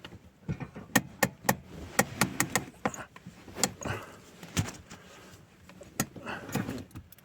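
A series of irregular sharp clicks and knocks, closest together from about one to three seconds in.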